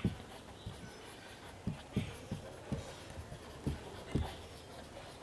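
Marker pen writing on a whiteboard: faint strokes of the tip across the board, with about six soft taps as the pen meets it.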